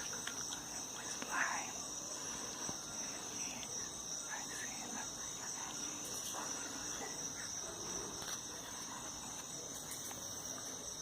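A steady high-pitched whine that does not change, with faint scattered clicks and soft rustles beneath it.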